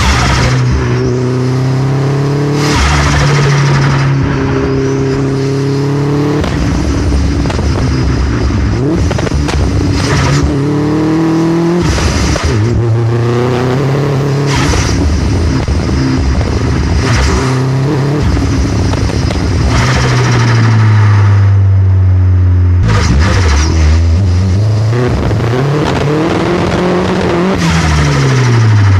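Vauxhall Astra VXR's turbocharged 2.0-litre four-cylinder engine accelerating hard and shifting up again and again, its pitch climbing and dropping at each shift. Between and during the pulls come clusters of sharp pops and bangs with turbo flutter from the anti-lag system.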